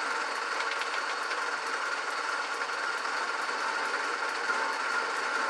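1929 South Bend lathe running in back gear, its gearing whirring steadily with a faint regular ticking while a carbide bit takes a pass in mild steel; a few light clicks about a second in.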